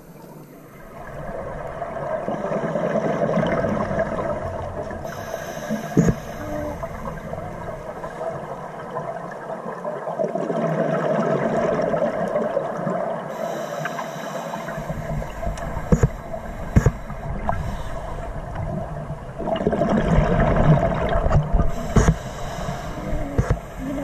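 Scuba diver's exhaled bubbles from a regulator, heard underwater through the camera housing: three long bubbling exhalations about eight seconds apart over a steady watery background, with a few sharp knocks.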